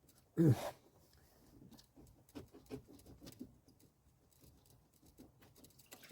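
Hands working the lower radiator hose off its neck to drain the cooling system. A brief loud pitched squeak comes about half a second in, then light scattered clicks, taps and patters.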